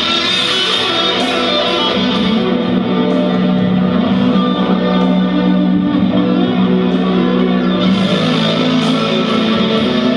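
Electric guitar strumming chords that ring out, a new strum every second or two.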